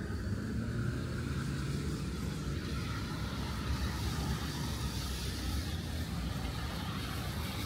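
City street traffic: cars driving by with a steady low rumble of engines and tyres, one engine tone standing out over the first couple of seconds.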